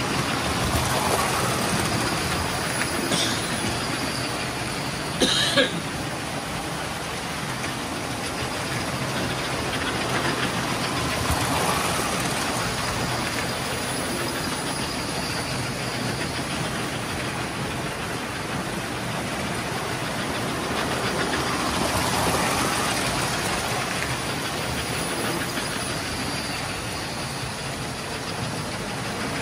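Several model electric trains running around a layout at once: a steady clatter and hum of metal wheels on track and motors, swelling as trains pass close by. There are two quick sharp clacks about five seconds in.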